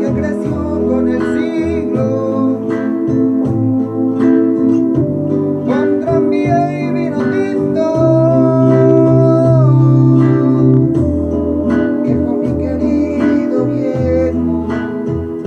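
A man singing while playing an acoustic guitar, holding one long note about eight seconds in.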